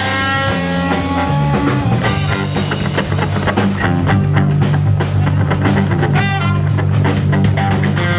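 Live band playing an instrumental brass-rock tune: trombone, trumpet and saxophone over electric guitar, bass and a drum kit.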